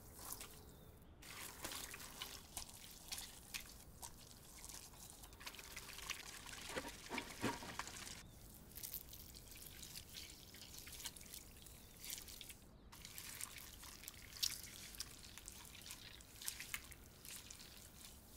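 Faint wet squelches and soft irregular clicks of hands patting a raw beluga sturgeon and packing a moist minced stuffing into its body cavity.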